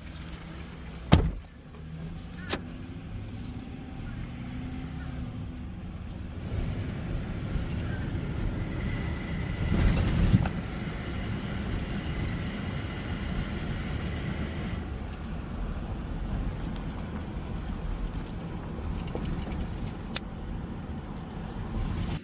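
A sharp thump about a second in, then the steady rumble of a moving vehicle, with road and wind noise that builds up and then holds steady.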